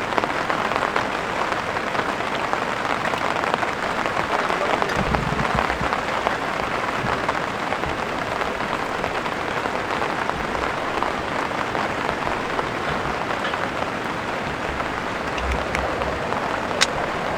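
Heavy rain falling steadily, an even hiss of dense drops. A single sharp tick sounds near the end.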